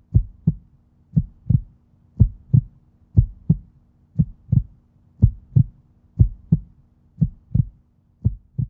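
Heartbeat sound effect: low double thumps, about one pair a second, over a faint steady hum.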